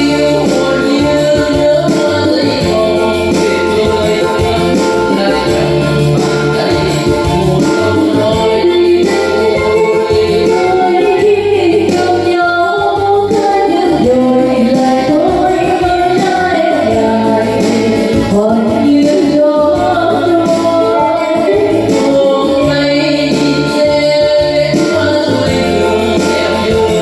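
A singer's voice over a microphone and PA, with an amplified backing track that keeps a steady beat.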